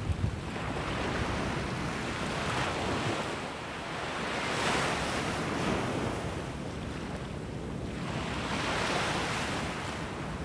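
Small waves breaking on a sandy beach, the surf's hiss swelling and easing in slow surges, with wind rumbling on the microphone underneath.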